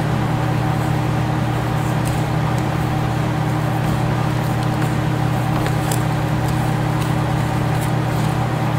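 A steady low electrical or mechanical hum with a few fixed tones above it. Over it come faint scratchy rustles of gloved hands working dry powder in a plastic tub.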